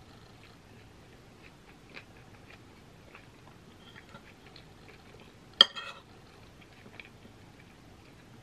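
Close-up chewing and mouth sounds of someone eating pasta salad. About five and a half seconds in, a metal fork clinks sharply against the ceramic bowl as it digs into the pasta.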